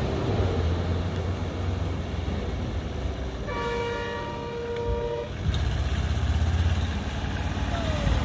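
Vehicle engine idling with a low steady hum, and about three and a half seconds in a vehicle horn gives one steady honk lasting nearly two seconds.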